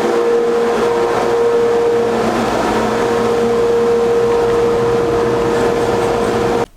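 Woodshop dust collection system running under test with a newly installed valve: a loud, steady whoosh of air with a constant whine, cutting off suddenly near the end.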